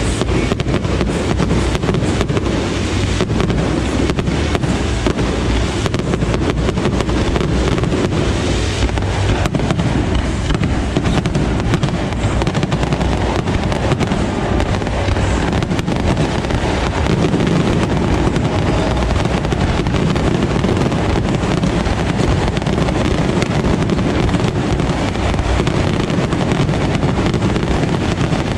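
Fireworks display: a dense, unbroken run of bangs and crackles over a heavy low rumble, the crackling thickest in the first half and thinning toward the end.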